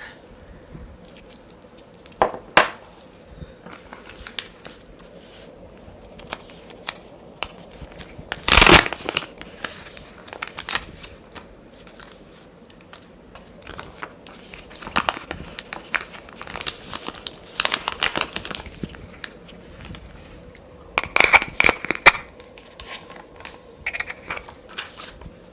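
Packaging being rummaged through and crinkled by hand, in scattered short rustles and crackles, with a loud crinkling burst about a third of the way in and clusters of rustling later on.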